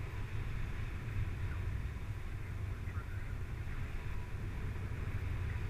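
Wind rushing over the microphone of a camera on a paraglider in flight: a steady low rumble with a hiss above it.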